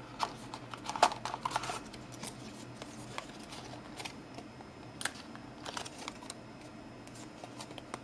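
Hands handling a small cardboard box, its paper insert and a small metal charging cable: scattered clicks and taps with short paper rustles, the sharpest click about a second in and another about five seconds in.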